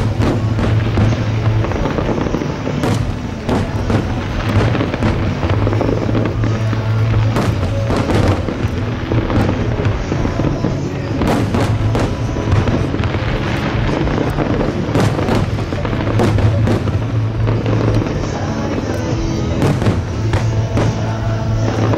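Aerial fireworks bursting in a rapid series of sharp bangs, over music with a steady bass.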